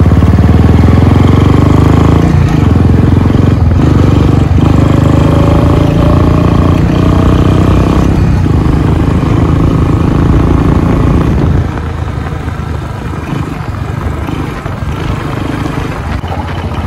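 Royal Enfield Bullet's single-cylinder four-stroke engine running under way as the motorcycle is ridden along a road at steady speed. It gets quieter about twelve seconds in.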